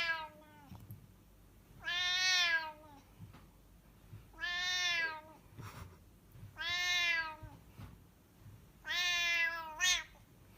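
A cat meowing over and over: four long, drawn-out meows about two and a half seconds apart, each dipping in pitch at its end.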